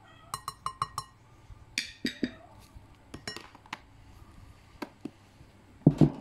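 A metal spoon clinks four quick times against a glass mixing bowl, tapping out yeast, with short ringing after each, followed by scattered lighter clinks and knocks of kitchenware. Near the end come two louder, dull knocks as a plastic tub is set down on the table.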